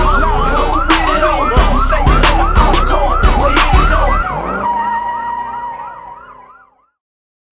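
Electronic siren yelping in quick rising-and-falling sweeps, about three a second, over a hip-hop beat with heavy bass hits. The beat drops out about four seconds in, and the siren fades away to silence near the end.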